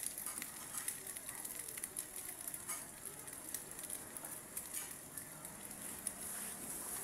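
Eggs frying in hot oil in a frying pan: a steady sizzle with many small crackles and pops.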